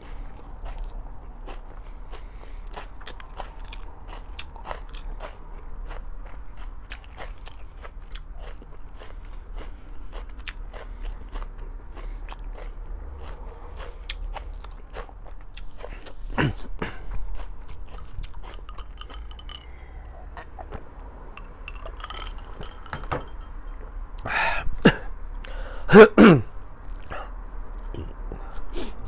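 Close-up eating sounds: steady chewing with many small wet mouth clicks, as of corned beef, fried eggplant, eggs and rice. Near the end come a few louder knocks and one brief low sound, the loudest moment.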